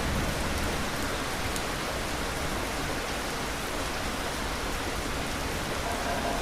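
Steady, even rain falling, with the last of a low, distant thunder rumble fading out in the first second.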